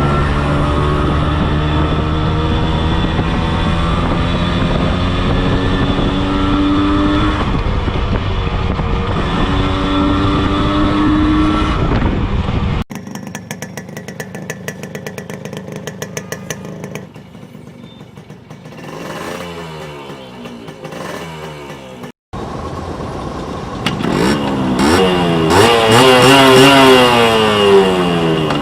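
Yamaha RX100's two-stroke single-cylinder engine running steadily for the first dozen seconds. After a sudden cut it idles with a fast ticking crackle and is revved in repeated throttle blips, the revs loudest near the end.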